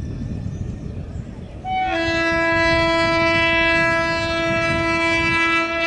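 WAP7 electric locomotive's horn sounding one long, loud, steady blast. It starts about two seconds in with a brief higher note and is held for about four seconds. Under it runs a low rumble.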